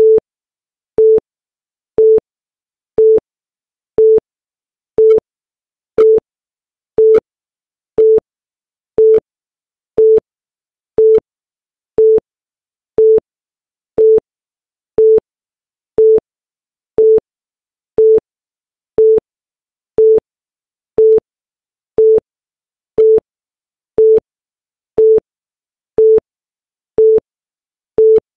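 Electronic timer beep: a short, mid-pitched, pure tone sounding exactly once a second, each beep cut off sharply, marking off the seconds of a chronometer.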